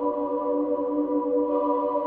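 Background ambient music: a sustained chord of steady held tones with no beat.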